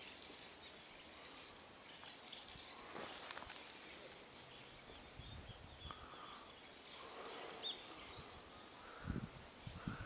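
Faint outdoor ambience with scattered short, distant bird chirps, and a few low bumps near the end.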